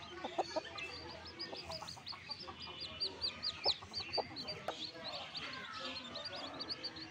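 A brood of newborn chicks peeping continuously, short high peeps several a second, with the mother hen's low clucks underneath.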